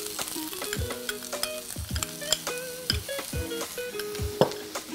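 Onions and green chillies frying in a non-stick pan, sizzling while a spoon stirs and clicks against the pan. Light instrumental background music with held notes and a soft beat about once a second.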